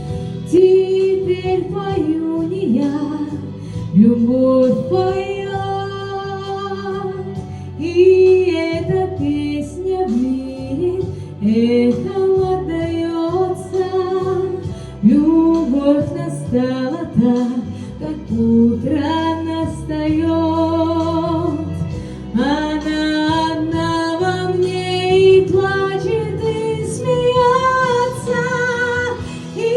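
A woman singing an old Russian love song over instrumental accompaniment, holding long notes with vibrato and sliding between pitches.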